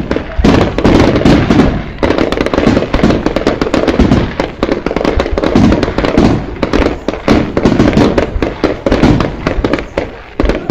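Aerial firework shells bursting in quick succession, a dense barrage of bangs with hardly a pause between them.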